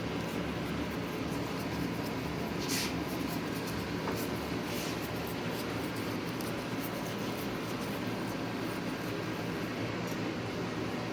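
Steady fan-like hum of room noise, with a couple of faint, brief scratches about three and five seconds in.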